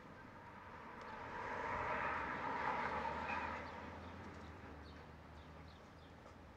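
A vehicle passing on the street: a broad rush that swells over about a second and a half, holds, then fades away over the next couple of seconds.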